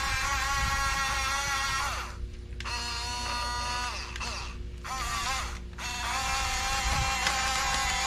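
Electric drive motors and gearboxes of a Huina 1569 RC bulldozer whining as it drives back and forth. The whine drops away and picks back up twice as the machine stops and changes direction.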